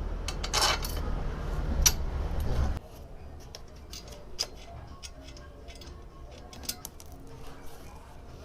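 Metal parts of a motorcycle paddock stand being handled and fitted together with bolts: scattered light clicks and taps. A low rumble of handling noise under the first few seconds cuts off abruptly, leaving only sparse clicks.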